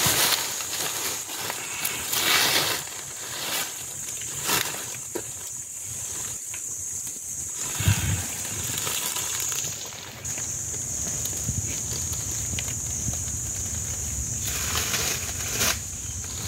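Dry leaves rustling and crackling in bursts as a Komodo dragon jerks and drags a wild hog carcass it is swallowing. A steady high hiss runs underneath and drops out briefly near the middle, and a low rumble comes in from about halfway.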